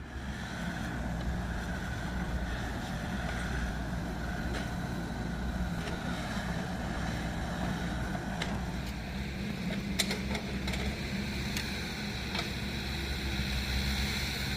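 An engine running steadily at a constant speed, with a few sharp clicks or knocks about two-thirds of the way through.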